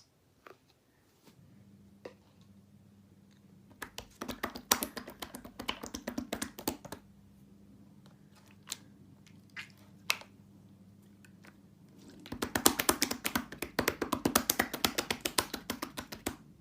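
Rapid tapping clicks in two bursts of about three and four seconds, over a faint steady hum.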